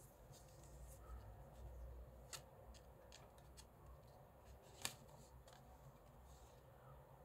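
Faint handling of a cardboard CD sleeve: soft scattered clicks and ticks of fingers and fingernails on card, with one sharper click about five seconds in as the disc is slid out of the sleeve.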